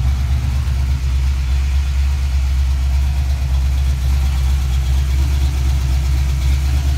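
1988 Mustang GT's 5.0 L (302 cu in) small-block Ford V8, fitted with a Trick Flow Trackmax cam, long-tube headers and Mac mufflers, idling steadily at about 1,000 rpm with a low, even pulse.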